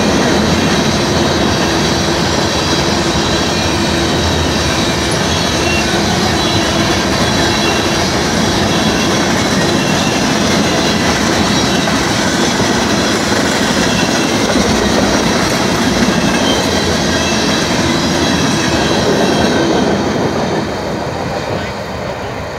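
Freight train of tank cars and hoppers rolling through a road crossing: a loud, steady rush of wheels on rail. It fades near the end as the last cars clear the crossing.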